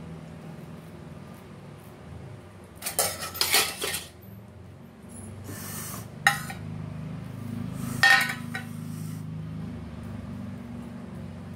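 Stainless steel plate and steel mixer-grinder jar clattering and clinking as they are handled on the kitchen counter, in three short bouts, with a sharp knock about six seconds in. A steady low hum runs underneath.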